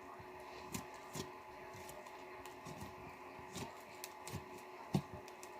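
Slime being handled and squished by hand, making irregular small clicks and pops, the loudest about five seconds in.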